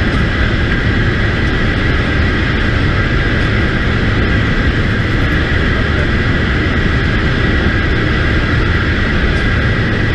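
Jet engine running steadily: a loud, even roar with a steady high whine over it.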